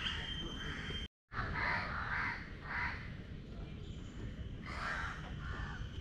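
A bird giving short harsh calls, three about half a second apart and then two more near the end, over a steady low background noise. The sound cuts out completely for a moment about a second in.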